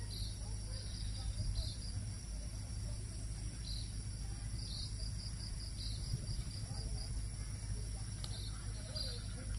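Insects droning steadily in the vegetation, with short high chirps recurring every second or so over a low steady rumble.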